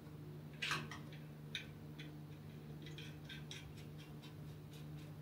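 Light metallic clicks and ticks of bolts, nuts and washers being handled and fitted by hand to a metal motor plate on a steel frame, with a louder click just under a second in and a run of small ticks in the middle. A steady low hum sits underneath.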